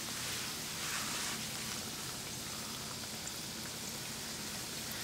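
Hot oil sizzling steadily as three pieces of wheat-flour vettu cake deep-fry in a pan.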